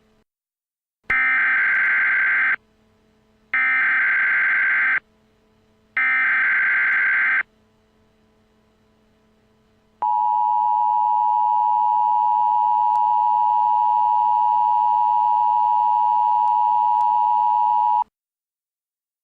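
Emergency Alert System header: three short bursts of SAME digital data tones, each about a second and a half long. After a pause comes the EAS two-tone attention signal, held steady for about eight seconds and then cut off sharply.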